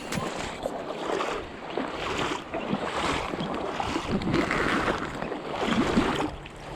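River water rushing, with wind buffeting the microphone.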